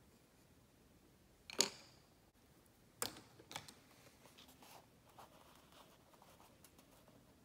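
A sharp knock, a second knock a little over a second later, then a few lighter taps and soft paper rustles as fingers handle an index card on a tabletop.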